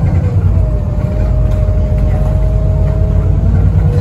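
VDL SB200 bus's diesel engine running under way, heard from inside the passenger cabin: a steady heavy low rumble with a thin whine on top that creeps slightly up in pitch, the turbo whine this bus is known for.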